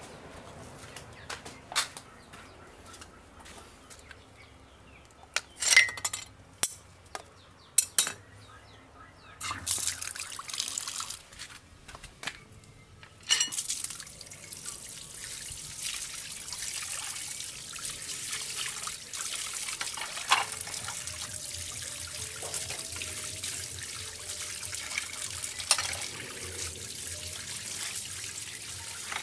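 Water from a tap running and splashing, starting about halfway through and then going on steadily. Before that, a few sharp clinks and knocks and a short burst of splashing.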